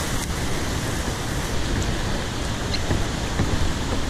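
Steady rushing noise of whitewater rapids on the Potomac River at Great Falls.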